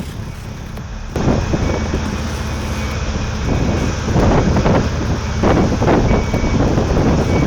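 Heavy machinery running with a low, dense engine rumble, which jumps louder about a second in.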